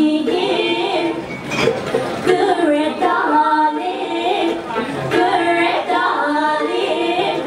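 A woman singing a melody with long held notes and sliding pitch changes.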